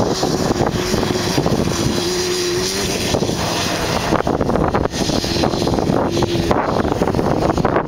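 Yamaha Banshee's twin-cylinder two-stroke engine running as the quad is ridden, its exhaust through FMF Fatty expansion chambers and PowerCore 2 silencers.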